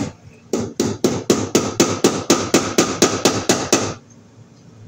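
Claw hammer striking something into a wooden board, a quick even run of about fourteen blows at roughly four a second that stops about four seconds in.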